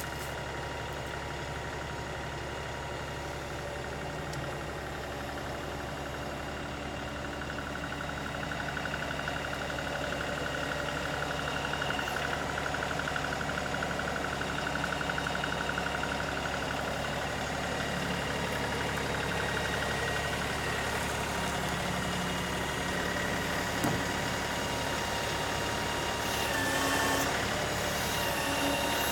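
LS XR3135 compact tractor's diesel engine running steadily, getting somewhat louder about eight seconds in, with a single thump near the end.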